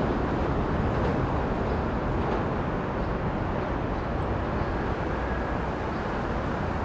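Low, steady rumble of a train on a steel truss railway bridge, slowly fading, with no wheel clatter.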